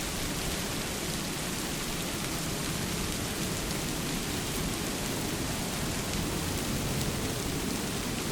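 Steady rain falling on a lake, an even hiss with a few scattered drop ticks.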